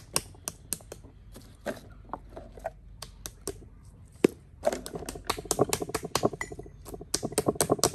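Light clicks and taps of kitchen utensils on a tabletop during food preparation, scattered at first, then a fast run of rapid taps from about halfway through.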